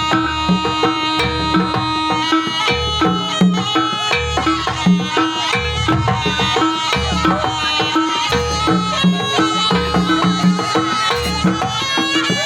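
Live Banyuwangi jaranan ensemble music: hand-drum strokes keep a repeating rhythm under a sustained, reedy melody line and ringing pitched percussion.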